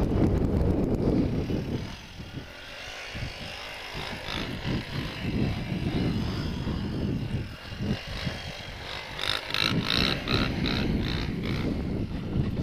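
A 1989 Yamaha Moto 4 250 ATV and a Suzuki DR-Z125 pit bike running, under a heavy rumble of wind on the helmet microphone. The rumble eases about two seconds in, and about nine seconds in a fast run of sharp rattling ticks comes through.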